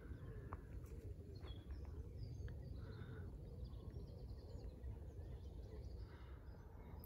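Faint outdoor ambience: scattered bird chirps and short whistles over a low, steady rumble.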